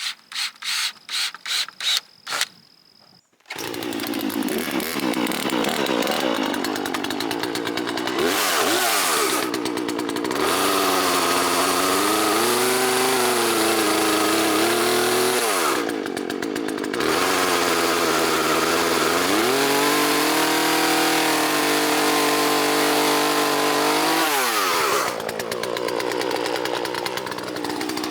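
A quick run of sharp knocks, about three a second, then a Poulan Pro PR4218 two-stroke chainsaw comes in loud and runs. Its engine pitch sags and recovers several times as it bogs under load cutting slab wood and revs back up.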